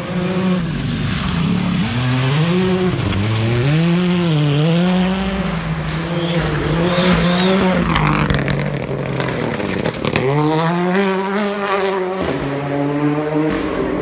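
A rally car's engine revving hard, its pitch repeatedly climbing and dropping through gear changes. About halfway through, a burst of noise and sharp crackles comes in, and then the engine pulls hard again.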